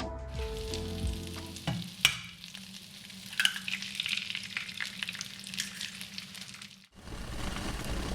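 Food sizzling and crackling in a frying pan, with a sharp click about two seconds in. The sizzle cuts off abruptly near the end.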